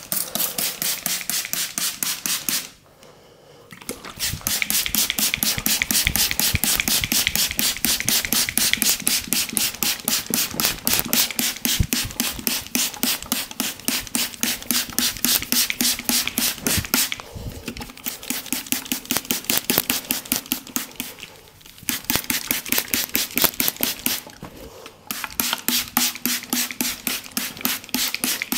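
Fast, even slapping strikes of a percussive head massage, the hands tapping and chopping on the head many times a second. The strikes come in long runs broken by short pauses about three seconds in and a few more times later on.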